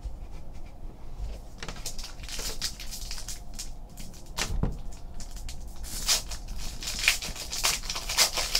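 A shiny trading-card pack wrapper being torn open and crinkled by hand, in short irregular crackling rustles, with one soft knock about four and a half seconds in.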